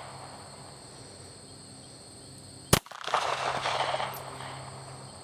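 A single shot from a Ruger LCP .380 ACP pocket pistol, a sharp crack about two and a half seconds in, followed by its echo dying away over a second or so.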